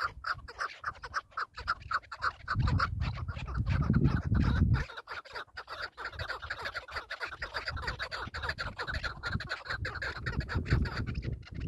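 Chukar partridges calling: a rapid, rhythmic series of clucking calls, about five a second. A low rumble joins in about three seconds in and lasts roughly two seconds.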